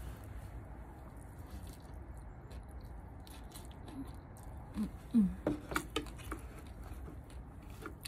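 Mouth sounds of someone eating rice and meat by hand: chewing and lip-smacking, with a short cluster of louder smacks and brief low hums about five seconds in, against a steady low hum.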